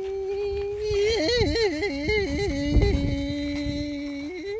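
A person humming, one voice with no words: a held note, then a quick warbling run of up-and-down steps about a second in, settling onto a lower held note. A dull low bump comes about halfway through.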